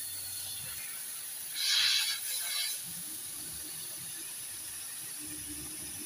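R134a refrigerant escaping from a refrigerator tube broken open with pliers, a steady high hiss. A louder, rougher burst of noise comes about a second and a half in and lasts about a second.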